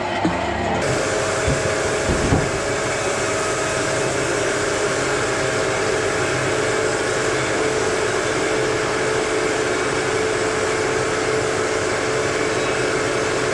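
Sawmill machinery running steadily, a loud even whirring noise with a constant hum, with a few knocks near the start.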